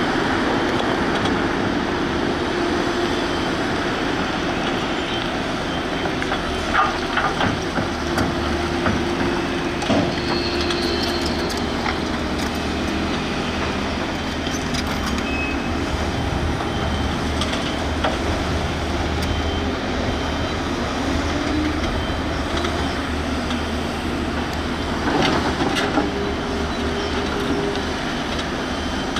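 Volvo 210B excavator's diesel engine and hydraulics running steadily, the engine note shifting as the machine works. Clanks and rattles come in a cluster about seven to ten seconds in and again near twenty-six seconds.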